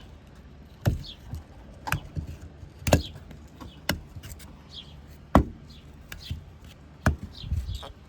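Sharp knocks and taps from handling a wall light switch and its box with hands and tools, coming about once a second with some gaps.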